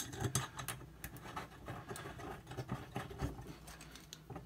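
Faint, scattered clicks and scrapes of metal parts being handled as a spring bracket is fitted under a washer's tub.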